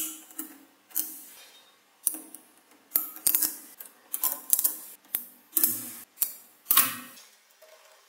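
Small neodymium magnetic balls clicking and clattering against each other as a sheet of them is peeled back, folded and pressed into place. The clicks come in short bursts, a new one every half second or so.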